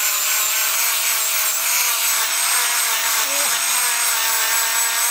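Angle grinder with a rubber backing pad and sanding disc running at one steady pitch, its motor whine over a dense hiss as the disc sands a wooden knife handle and its metal ferrule.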